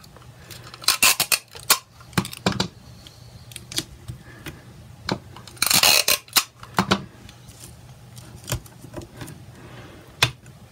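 Sticky tape being pulled off the roll and torn with a short rasp about six seconds in, amid scattered clicks and taps as tape and linen are pressed onto a plastic light box. A single sharp click a little after ten seconds as the light box is switched on.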